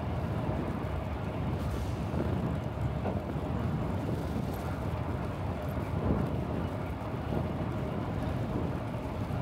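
Wind buffeting the microphone of a chest-mounted camera on a moving bicycle: a steady low rumble with road and traffic noise mixed in.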